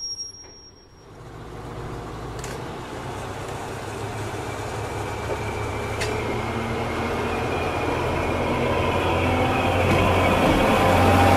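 KiHa 20 diesel railcar's engine running as the car rolls slowly alongside, a low drone growing steadily louder as it comes close.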